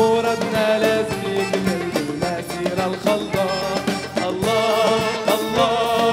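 A Moroccan pop song performed live: a singer with band accompaniment and a steady beat.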